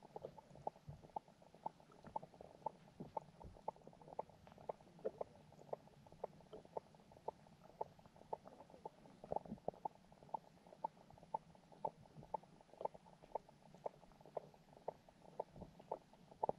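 Underwater sound picked up by a submerged camera: a faint low murmur of water with frequent short clicks and pops, about three a second.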